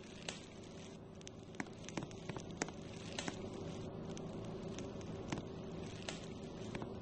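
Harbor Breeze Centreville 42-inch ceiling fan running, a steady low motor hum with irregular light clicks and ticks over it.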